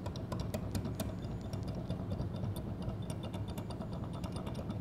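Metal Z-axis gearbox being wiggled back and forth on its motor shaft to work it loose: light, irregular clicks and knocks over a steady low hum.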